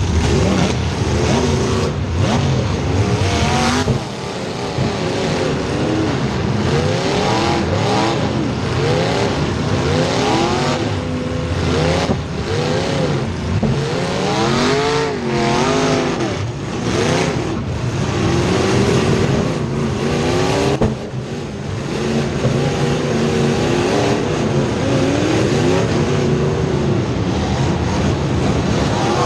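Several race car engines running together on a racetrack, their pitches rising and falling as the cars accelerate, lift off and pass by. The overall sound dips briefly twice, about four seconds in and again about two-thirds of the way through.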